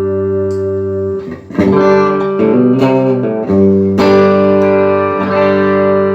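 Electric guitar played through a Mesa Boogie JP-2C tube amp head, tested after repair of a broken slider pot shaft. A held chord rings, drops out briefly about a second and a half in, a few changing notes follow, then a new chord is struck about four seconds in and rings out.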